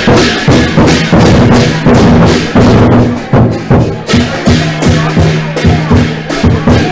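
Chinese lion dance percussion: a large drum beaten together with crashing cymbals and a gong in a loud, steady rhythm of about two to three strikes a second.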